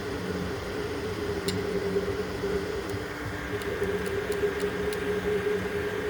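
Desktop 3D printer at work: its stepper motors hum and whine in steady tones that switch on and off and shift slightly in pitch as the print head moves, with a few faint ticks.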